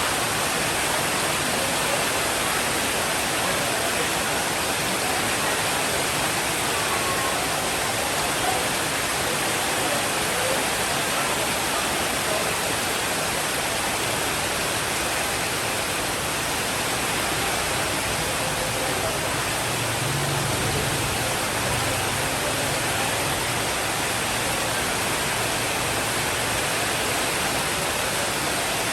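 Steady, dense rainfall making an even hiss, with a faint low rumble about twenty seconds in.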